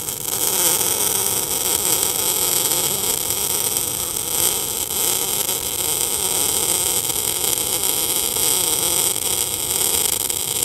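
MIG welding arc crackling and hissing steadily while a weld bead is laid with an arc-shaped weave, the power set a bit high for the plate thickness.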